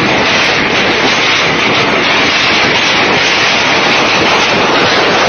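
Heavy hailstorm: hailstones pelting down hard and without pause, a loud, steady, dense clatter of countless small impacts.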